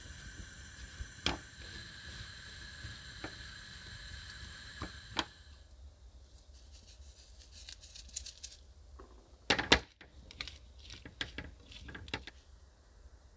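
Silicone spatula stirring diced pears in a nonstick frying pan: irregular light clicks and scrapes, with one sharp knock on the pan about two-thirds of the way through. A faint steady high tone runs under the first half and stops about halfway.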